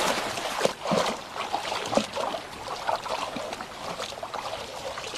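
River water trickling and splashing, with a few short splashes about a second apart.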